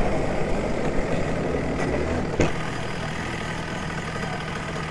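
Rotax Max Evo 125cc two-stroke kart engine running steadily at low revs as the kart rolls slowly through the pit lane. A single short knock comes about halfway through.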